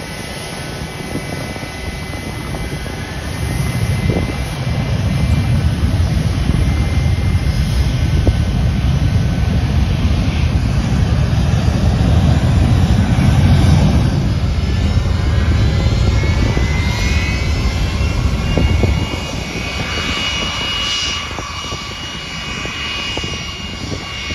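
Airbus A320-family airliner's twin jet engines at high thrust on the runway: a loud, deep jet roar that builds about four seconds in and eases off near the end. In the later part the high whine of a second airliner's jet engines rises and then holds steady as it taxis close by.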